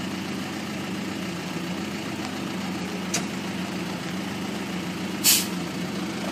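Helisport CH-7 Kompress helicopter's engine idling with a steady low hum while the rotor turns slowly at ground idle. A faint click comes about three seconds in, and a brief, louder hiss a little after five seconds.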